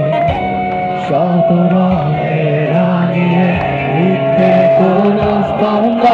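A live band plays loud music, with singing over acoustic guitars and drums.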